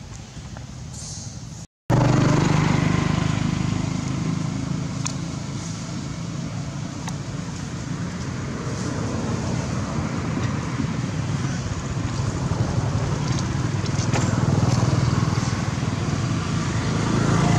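Nearby motor vehicle running, a steady low engine hum with road noise, cutting in abruptly after a brief dropout about two seconds in.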